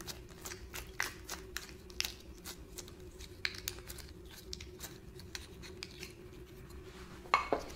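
Glitter slime being pulled and handled by hand, making small irregular sticky clicks and crackles, with a louder sharp sound near the end.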